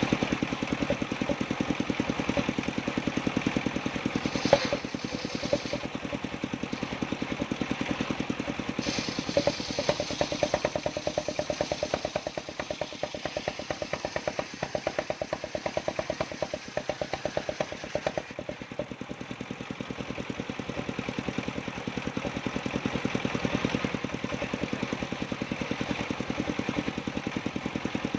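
Engine of a mobile circular sawmill rig running steadily, with rapid, even firing pulses. A single sharp knock about four and a half seconds in.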